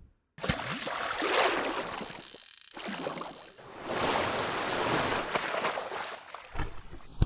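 Water rushing and splashing, heard in short, abruptly cut segments.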